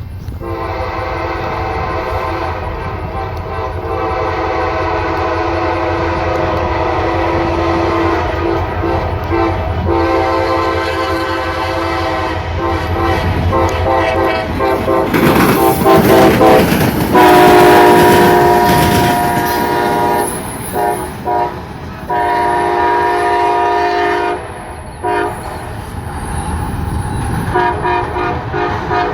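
Diesel locomotives running light, their air horn sounded again and again: long held blasts, then a run of short toots near the end, over the steady low rumble of the engines. Midway the rumble swells into a loud rush as the engines pass close.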